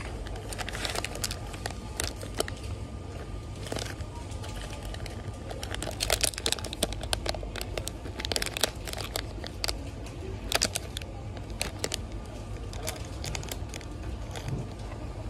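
Plastic candy bags crinkling in the hand as they are picked off a shelf and handled: irregular bursts of sharp crackles, busiest from about six to nine seconds in. A steady low hum runs beneath.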